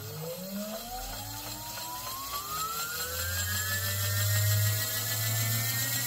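Sondors Metacycle electric motorcycle's rear hub motor whining as it spins the rear wheel up on a stand under throttle. The whine rises steadily in pitch and levels off near the end, with a low hum joining about halfway.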